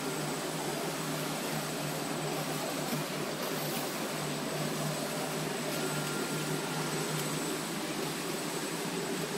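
Automatic folder-gluer for corrugated cartons running steadily, its belts and rollers carrying cardboard blanks through: a continuous mechanical whir with a low hum and a faint high-pitched whine.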